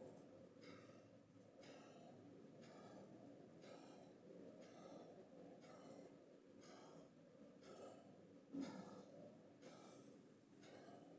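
Near silence: faint room tone with soft, regular puffs of breath-like hiss, a little more than one a second.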